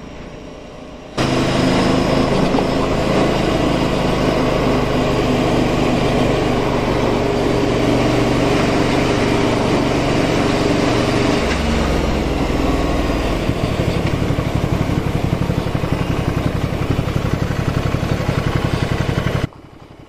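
Ducati Scrambler Sixty2's air-cooled 400 cc L-twin running under way, with a dense noisy haze over the engine. About two-thirds through it slows into a lower, evenly pulsing beat, and it cuts off shortly before the end.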